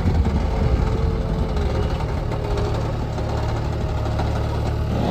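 Heavy diesel engine running steadily with a low rumble, and a faint higher tone over it in the first couple of seconds.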